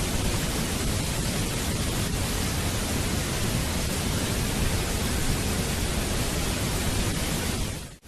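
Waterfall: a steady rush of falling water, dropping away briefly at the very end.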